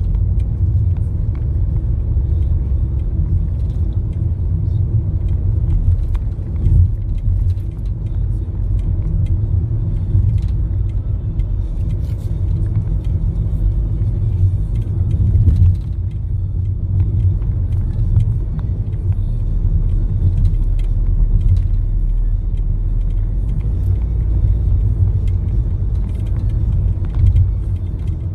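Steady low rumble of road and engine noise inside a moving car's cabin while driving at a steady speed.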